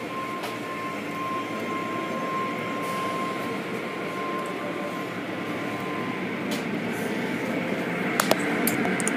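Automatic car wash machinery running: rotating cloth brushes and water spray give a steady rushing churn. A steady high whine runs under it and stops about six seconds in, and a few sharp clicks come near the end.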